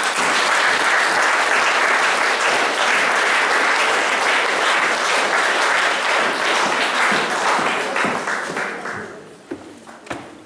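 Audience applauding, a dense round of clapping that dies away about nine seconds in.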